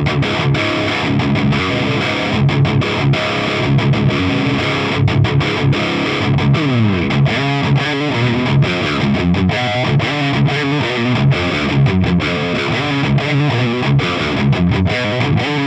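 Distorted electric guitar in C-sharp tuning, played as metal riffs through an Orange Rockerverb 100 MKIII on its dirty channel with every control at noon, close-miked on the speaker. It is rapid, stop-start chugging with a falling slide about seven seconds in. The player finds this medium-gain tone too neutral, short on gain and tightness.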